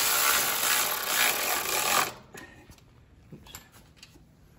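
A power tool runs steadily, driving in the 8 mm engine bolts, and stops abruptly about two seconds in. A few faint clicks and taps of tools follow.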